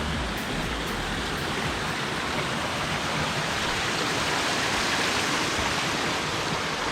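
Steady rush of a cascading mountain creek, an even hiss of falling water.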